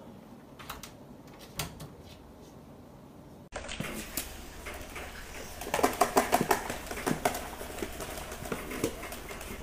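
A few faint taps as a cat paws and jumps at a wooden door, then a dense run of clicks and scrabbling from Shar-Pei puppies moving about in a plastic tub, loudest around six to seven seconds in.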